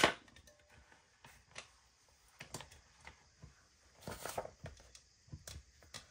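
Scattered light clicks and taps from a hole punch and paper being handled as a stuck punch prong is worked free, with a sharp click right at the start and a small cluster of clicks about four seconds in.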